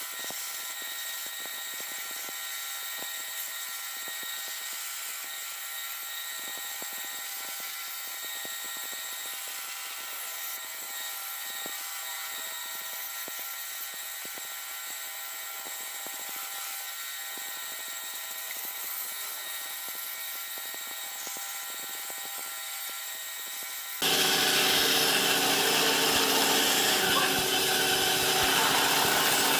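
Band saw running with a steady whine. Near the end it suddenly gets louder and fuller as the blade cuts through a pine board.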